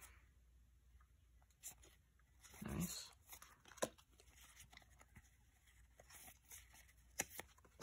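Yu-Gi-Oh trading cards being handled: cards slid and fanned in the hands and one laid down on a playmat, giving a few soft taps and clicks.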